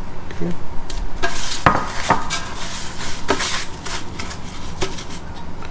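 Kitchen clatter during breading of shrimp skewers: several sharp, irregularly spaced clinks and knocks of dishes and utensils.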